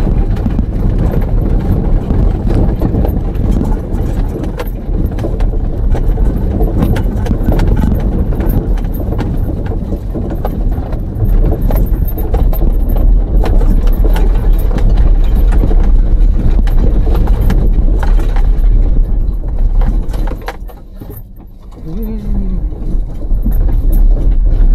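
Vehicle driving over a rough, unpaved track: a steady low rumble with frequent knocks and rattles from the bumps, dropping away briefly about 21 seconds in.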